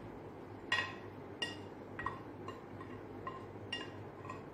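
A glass dish clinking against the rim of a glass jar as dry powder is tipped in: about seven light, ringing clinks at irregular intervals.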